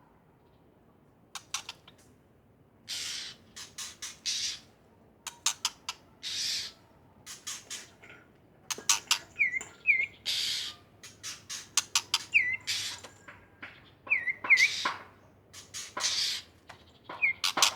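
White-rumped shama singing a busy, varied song of sharp clicks, harsh rasping notes and short hooked whistles, beginning after about a second and a half of quiet.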